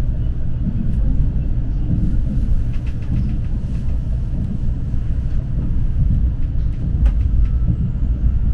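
Steady low rumble of a KTX-EUM electric train running at speed, heard from inside the passenger cabin, with a few light ticks scattered through it.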